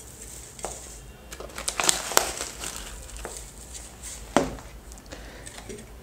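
Crinkling of a shiny stand-up food pouch and dry rustling of dried flower petals and leaves being taken out by hand and dropped onto a plate, in scattered crackles, with one sharper tap about four and a half seconds in.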